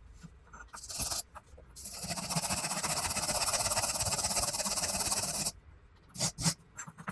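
Paint spray hissing in bursts: a short puff about a second in, one long steady spray of three to four seconds, then two quick puffs near the end.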